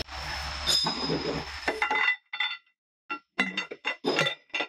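A steel bar driving the piston out of the bottom of a QL down-the-hole hammer: about two seconds of rough metal scraping and rumbling with a low hum, then a run of sharp metallic clanks that ring, a few a second.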